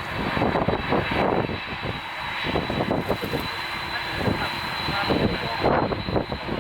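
Jet engines of a Boeing 747-400F freighter running, a rushing noise with a steady high-pitched whine over it.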